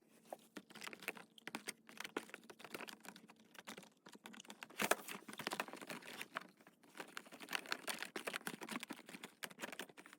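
Small fidget toys being handled and packed into an organizer drawer: a quiet, dense run of light clicks and rattles, with one sharper knock about halfway through.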